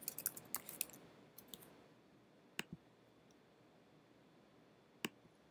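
Quiet clicking from a computer keyboard and mouse: a quick run of keystrokes over the first second and a half, then two clicks about two and a half seconds in and a single click near the end.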